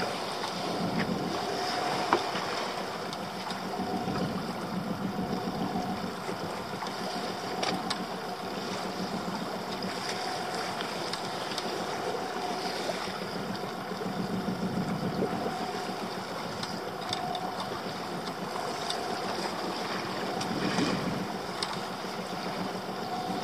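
A small fishing boat's engine running with a steady low hum that swells and fades every few seconds, with water washing against the hull and wind.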